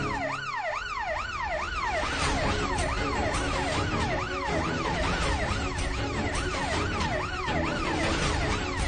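Police siren wailing, its pitch sweeping up and down a little over twice a second, over background music whose low sustained notes grow stronger about two seconds in.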